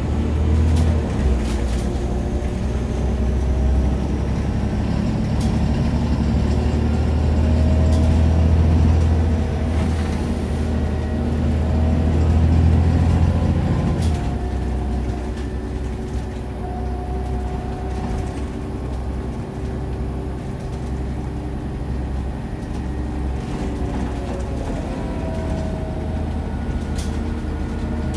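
Scania OmniCity city bus's diesel engine and drivetrain heard from inside the passenger cabin while driving. The engine note rises and shifts pitch as the bus pulls, then the heavy rumble eases off about halfway through and settles lower. A few light interior clicks and rattles come through.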